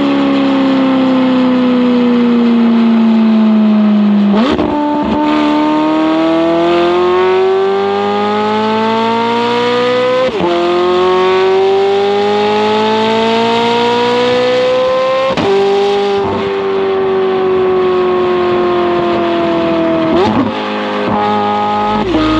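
McLaren 720S twin-turbo V8 with a non-valved titanium double X-pipe exhaust and free-flow downpipes, heard from a camera on the bumper while driving. The engine note falls for a few seconds, then after a gear change about four seconds in it climbs steadily through two upshifts, at about ten and fifteen seconds. Near the end it eases off and falls, with a couple of short blips.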